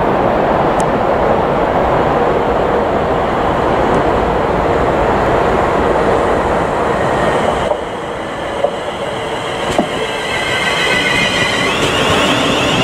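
Class 350 Desiro electric multiple unit approaching and passing close by. A steady rushing noise drops suddenly about two-thirds in, then several high wavering whining tones build over the last few seconds as the train runs past.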